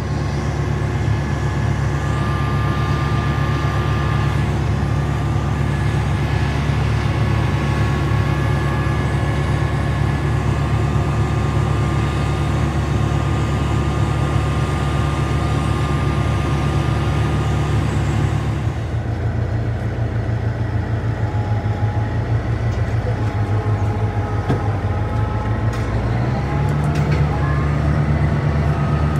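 Farm tractor engine running steadily while pulling a sugar beet harvester, with the harvester's drives whining. About two-thirds of the way through, the engine note drops lower and the hiss of the machinery thins out.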